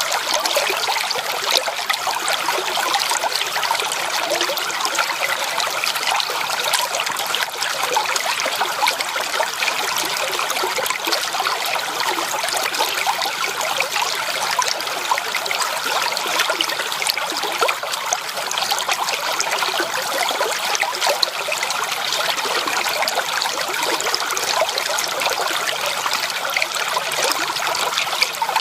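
Shallow creek water trickling and babbling over stones, a steady bubbling flow without pause.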